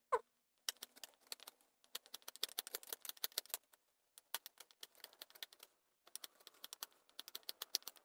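Knife whittling a wooden blank, played back sped up: a rapid patter of short dry scraping clicks as the blade takes off shavings, in runs with short pauses. A brief chirp sounds at the very start.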